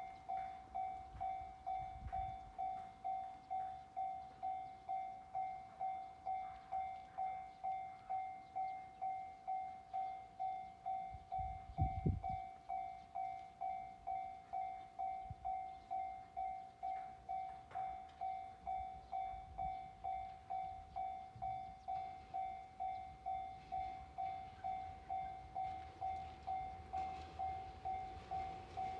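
Japanese railway level-crossing warning bell ringing steadily, a single electronic tone struck about twice a second. A brief low rumble comes about twelve seconds in.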